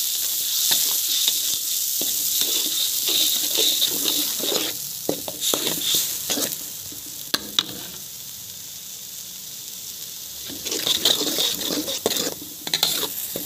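Blended chili paste sizzling as it is sautéed in a metal wok, with a metal spatula scraping and clicking against the pan as it is stirred. The sizzle eases through the middle and picks up again near the end with more stirring.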